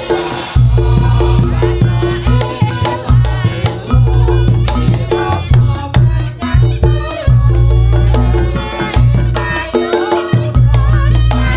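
Javanese Reog music driven by rapid kendang hand-drum strokes, with a wavering melody above and very heavy, boosted bass notes that cut in and out.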